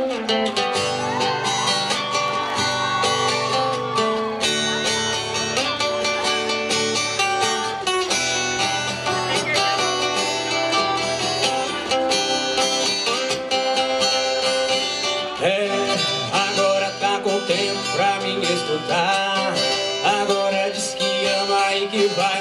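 Live band playing a song, with strummed acoustic guitars over drums at a steady beat.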